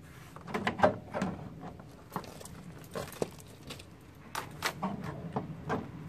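Car door trim panel being handled and pressed into place against the door: a string of irregular light knocks, taps and scrapes as its top edge is lined up with the window channel, the sharpest knock just under a second in.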